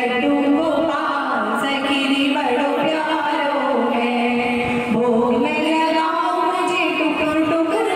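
Female voices singing a devotional bhajan, with long held notes that slide smoothly from pitch to pitch.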